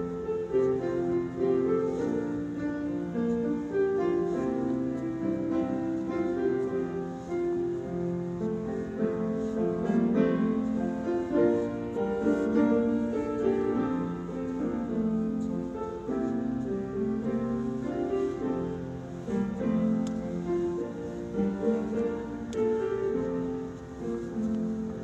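Piano music without singing, a continuous flow of held notes and chords.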